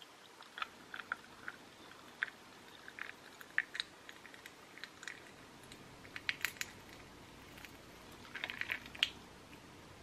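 Ice cubes in a tall glass crackling and popping as hot coffee from a moka pot is poured over them: faint, irregular sharp cracks, with a quick run of them near the end.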